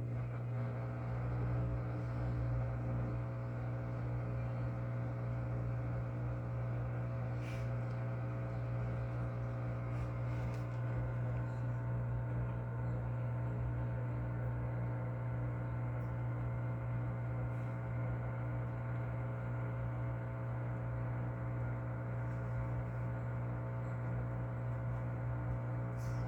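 LG Inverter Turbo Drum washing machine's drain pump humming steadily with a deep, even electrical hum as the water drains, with a few faint ticks. The drum never goes into spin: a faulty water-level pressure switch signal keeps the control board from ordering the spin.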